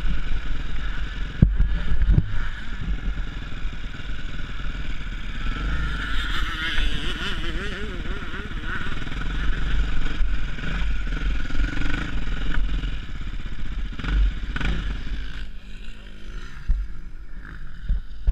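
Dirt bike engine running at low speed, heard from a helmet-mounted camera, with a heavy low rumble throughout; it drops quieter for a couple of seconds about fifteen seconds in.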